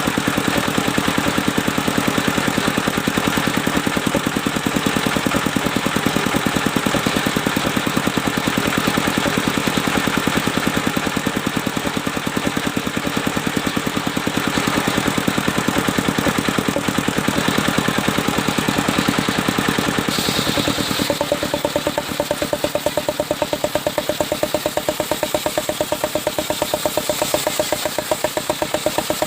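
Engine powering a portable circular sawmill, running steadily with rapid, even firing pulses. About two-thirds of the way through the sound changes and a steady hum tone comes in.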